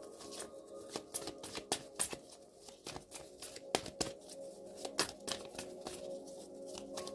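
A deck of oracle cards being shuffled by hand, a long run of quick, irregular card snaps and slaps.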